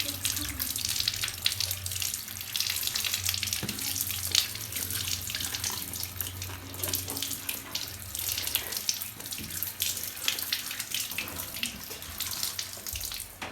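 Running water splashing steadily, with irregular small splashes throughout; it stops at the end.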